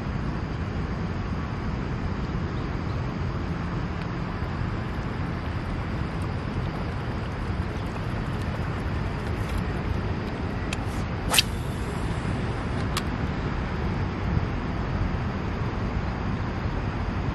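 Steady low rumble of distant road traffic, with a sharp click about eleven seconds in and a fainter one a second and a half later.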